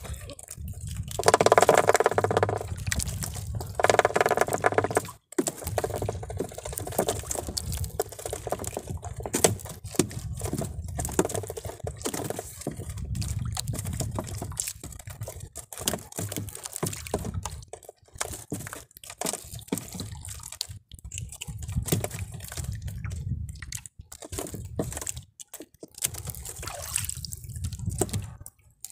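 Water sloshing and dripping around a small outrigger fishing boat while a wet handline is hauled in hand over hand, with irregular small splashes and drips. Two loud pitched sounds come in the first five seconds.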